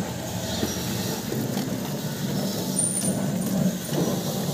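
Steady street traffic noise, with faint rustling of tissue paper being unwrapped from an earbud case.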